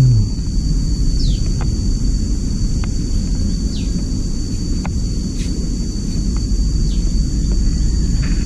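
Steady low outdoor rumble with a faint high steady whine, broken every couple of seconds by a short falling chirp, and a few light clicks.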